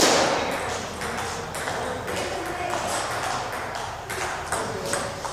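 Table tennis rally: the ball clicking off the bats and the table in a quick, irregular string of sharp clicks, the loudest right at the start.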